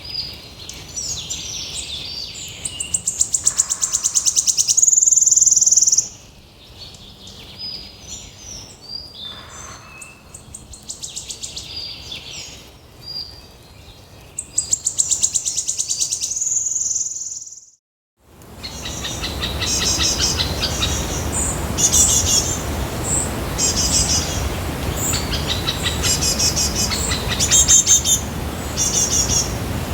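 Bird song from two recordings. First a bird sings phrases of varied high notes, each ending in a loud, fast trill, twice. Then, after a brief silence about 18 seconds in, a hissier recording carries rapid high chattering calls.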